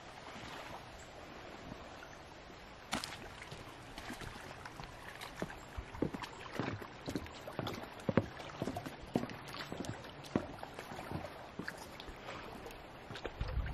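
Footsteps on wooden walkway planks, a run of irregular knocks starting about three seconds in, over a faint steady outdoor hiss.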